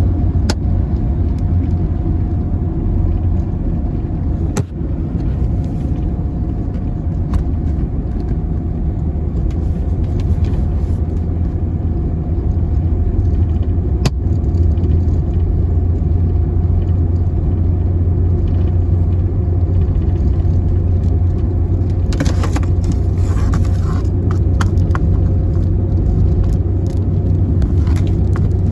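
Steady low rumble of a van driving along the highway, with road and engine noise heard from inside the cabin. A few sharp clicks, and a short spell of rattling near the end.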